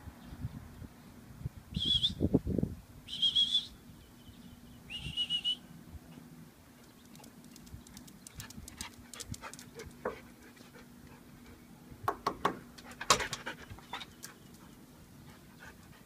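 Dogs whining: three short, high-pitched whines, each sliding slightly down, in the first six seconds. Scattered sharp clicks and taps follow, loudest about twelve to thirteen seconds in.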